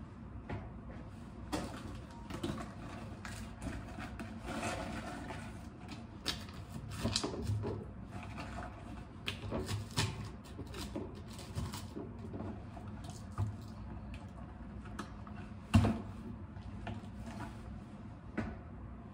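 Smoothie ingredients being shaken out of silicone storage bags into a clear blender cup: a run of small clicks, taps and rustles as pieces drop in and the bags are handled, with one louder knock about three-quarters of the way through.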